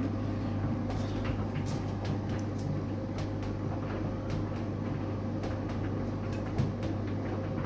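LG direct-drive front-loading washing machine slowly tumbling the clothes after its final spin, at the end of its cycle, with a tumble dryer tumbling towels alongside. A steady low hum with scattered light clicks and knocks.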